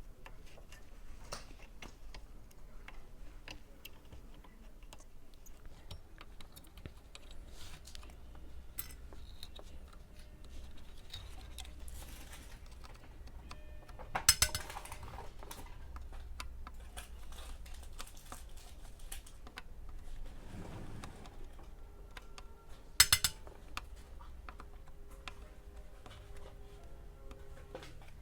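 Light clicks and taps of hand tools on a TV power supply circuit board as old capacitors are desoldered and pulled out, with two louder sharp clicks, one about halfway through and one near the end, over a steady low hum.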